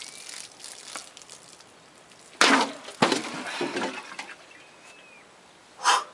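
A katana strikes and cuts through a liquid-filled metal can. There is a sudden crash about two and a half seconds in, then a sharp knock and a second of clattering, and another short burst of noise near the end.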